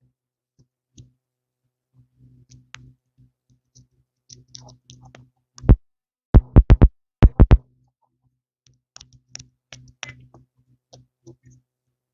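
Close handling noise: scattered faint clicks and rustles, with a burst of loud, sharp taps a little past the middle, one then four in quick succession then three more.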